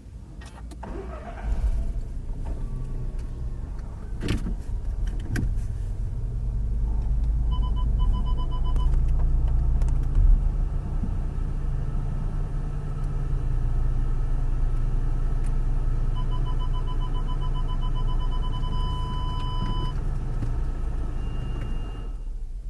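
Automatic car wash heard from inside the car: a steady low rumble of the wash machinery, with a couple of sharp knocks in the first five seconds. Two spells of rapid electronic beeping come through, and a steady high tone starts just before the end.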